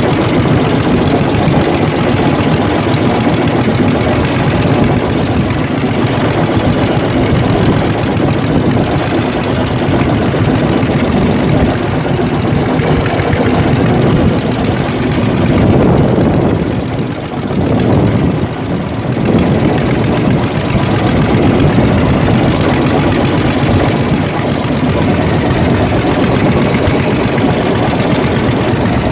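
Small fishing boat's engine running steadily, with a brief dip in level about two-thirds of the way through.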